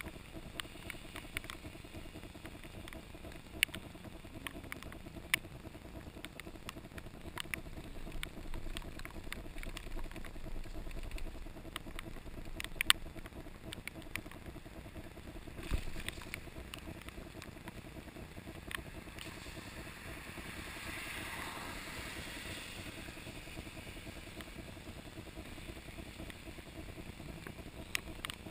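Mountain bike ridden on a wet street, heard from its handlebar: a steady low rumble of the ride with scattered sharp clicks and rattles. A hiss swells and fades about twenty seconds in.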